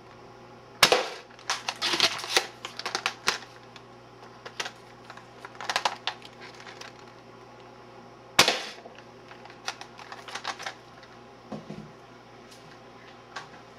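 Modified Ertl pump-action toy foam-dart shotgun being handled: two sharp, loud plastic snaps about seven and a half seconds apart, each followed by a run of quick plastic clicks and clacks, with lighter ticks toward the end.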